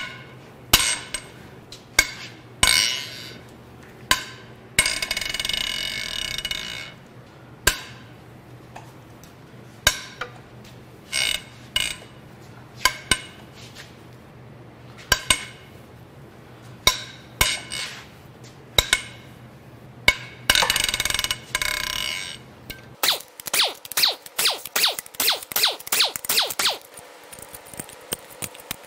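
Cylinder head bolts of a 4.6L DOHC modular V8 being cracked loose one after another with a long breaker bar, giving sharp cracks every second or two. There are a couple of longer clattering stretches, and a fast run of clicks near the end.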